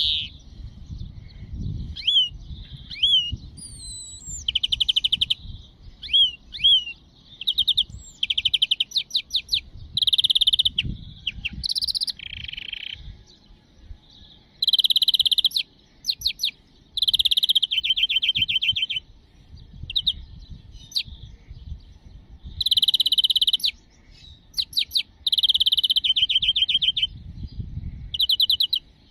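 European greenfinch singing: a series of fast rattling trills and twittering phrases, broken by short pauses, with a few upward-gliding whistled notes a couple of seconds in.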